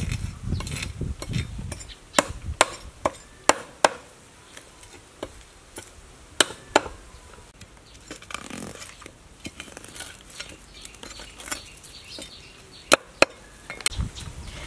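A cleaver scraping the scales off a snakehead fish on a wooden board, with sharp knocks of the blade against the board, several coming in quick pairs.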